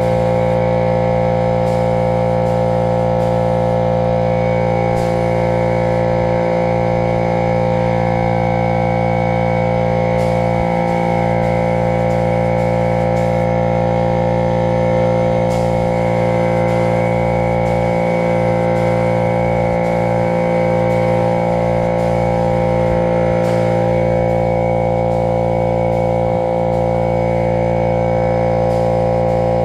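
Background music: a steady, held drone of sustained tones.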